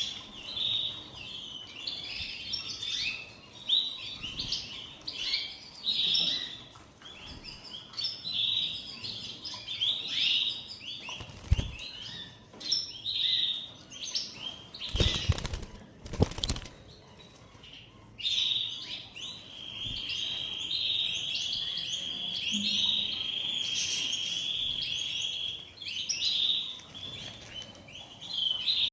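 Canaries chirping and singing, with one long, steady, high rolling trill held for several seconds about two-thirds of the way in. Brief wing-flapping near the middle.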